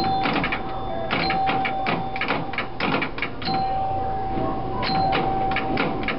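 Old electromechanical pinball machine in play: a rapid clatter of relays, bumpers and flippers, with short ringing bell strikes and a steady tone that comes and goes.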